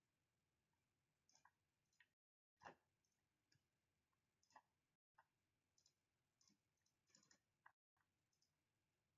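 Faint computer mouse clicks at irregular intervals, about one or two a second, with a slightly louder click about two and a half seconds in, as keys are pressed on an on-screen calculator.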